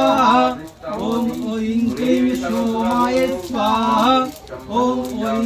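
A man chanting Hindu ritual mantras in a steady, held sing-song monotone, each phrase drawn out with the pitch bending at its end and short pauses for breath between phrases.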